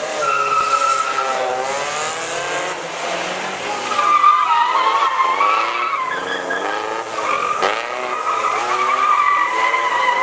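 Small classic roadster doing smoky donuts: its tyres squeal in long wavering tones over the engine revving up and down.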